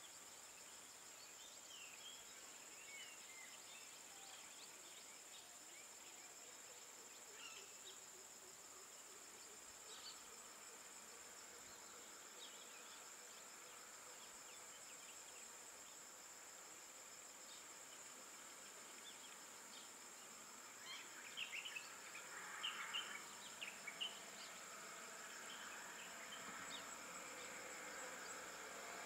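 Faint, steady high-pitched drone of insects, with scattered short chirps that grow busier about two-thirds of the way through.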